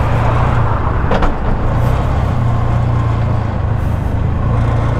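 Bajaj RE 205 auto-rickshaw engine running steadily while it is driven, heard from the driver's seat along with road noise, with a brief click about a second in.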